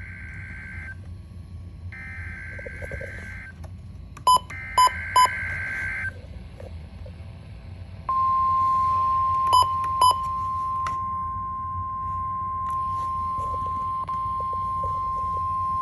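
NOAA Weather Radio Emergency Alert System broadcast: the last of one burst of buzzy digital SAME header tones and two more bursts, with a few sharp short beeps. About eight seconds in, the 1050 Hz warning alarm tone begins, a single steady high tone that runs on. This is the weekly test of the weather radio's warning alarm feature.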